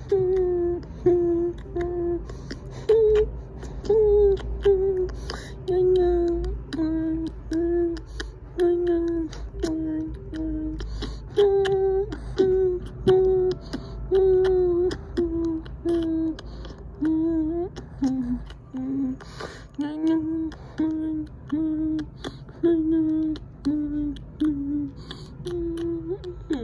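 A person humming a simple tune in a high voice: a string of short held notes with small breaks between them, over a steady low background rumble.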